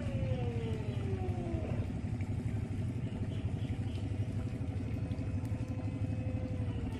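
A motor running steadily with a fast, low chugging. Over it is a fainter whine that slides down in pitch in the first two seconds, holds steady, and drops again near the end.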